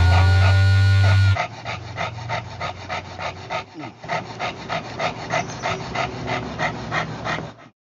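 A music track ends on a held chord, then an English bulldog pants fast, about three breaths a second, until the sound cuts off near the end.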